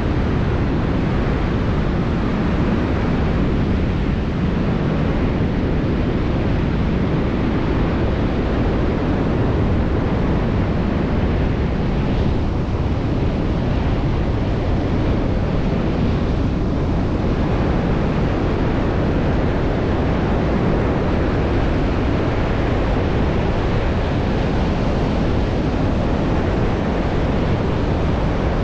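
Pacific Ocean surf breaking offshore, a steady, unbroken wash of waves, with wind buffeting the microphone.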